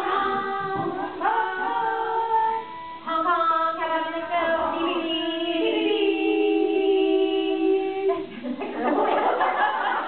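Women's voices singing a tune together without accompaniment, with several long held notes, breaking into laughter about eight seconds in.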